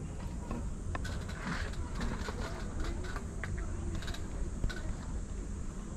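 Outdoor ambience: a steady low rumble with scattered small clicks and taps, and faint voices in the background.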